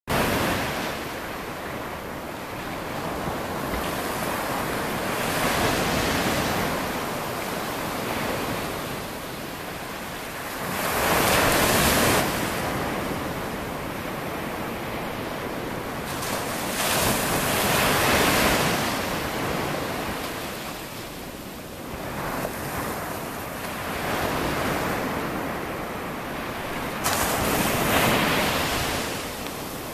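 Ocean surf breaking and washing up the shore, rising and falling in swells every six seconds or so.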